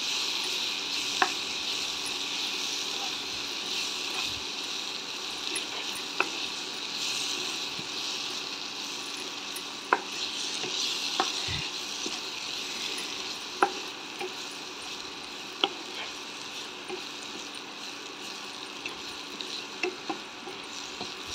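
Green chillies frying in a pan with a steady sizzle while a spatula stirs them, with sharp taps of the spatula against the pan every few seconds.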